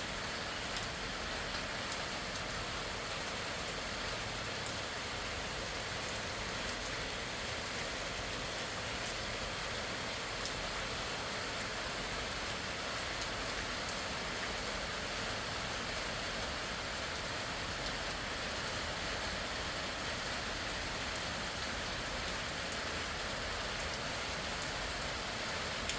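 Nice easy rain falling steadily, an even hiss of rain with scattered faint drop ticks.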